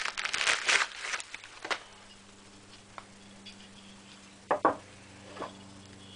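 Plastic wrapping crinkling as it is pulled off, stopping about a second in, then a few short, light knocks and clicks from handling, the loudest a quick double knock near the end.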